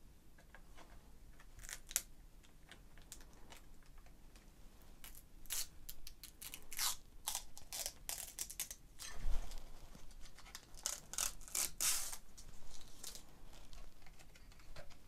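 Fingernails scratching and picking at protective plastic film on a motherboard's plastic I/O cover, with a run of short, scratchy crinkling rustles from about five seconds in and a soft knock about nine seconds in.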